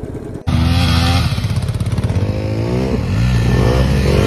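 Motorcycle engine revving, its pitch rising and falling again and again as the throttle is worked. It cuts in loud about half a second in, after a quieter engine hum.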